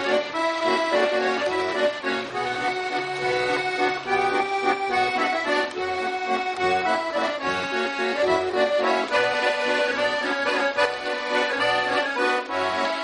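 Background music: a traditional folk tune led by accordion, with a regular low bass pulse.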